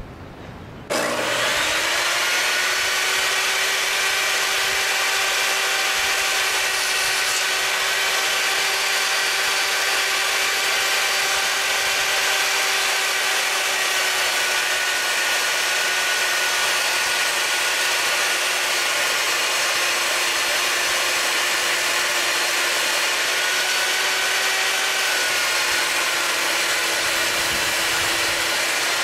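Skil TS6307-00 10-inch jobsite table saw switched on about a second in, spinning up and then running with a steady high motor whine while ripping a strip from a 3/4-inch MDF sheet. The pitch sags slightly now and then as the blade takes the load of the cut.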